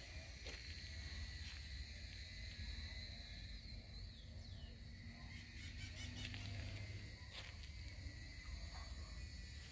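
Faint outdoor garden ambience: a steady high-pitched insect drone over a low rumble, with a low steady hum for a few seconds in the middle.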